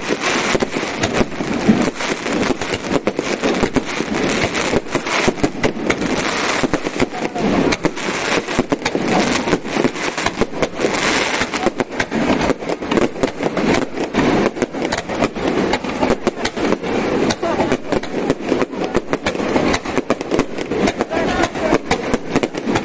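Aerial fireworks bursting in a dense, rapid barrage: overlapping bangs and crackles, many a second, with no break.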